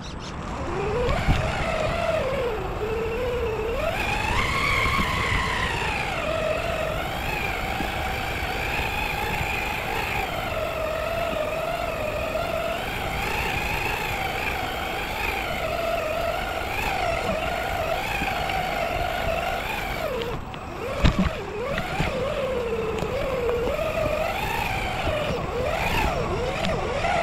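RC4WD Bully 2 rock crawler's electric motor and drivetrain whining as it drives, the pitch rising and falling with the throttle. The whine cuts out briefly about twenty seconds in, then comes back with a sharp knock.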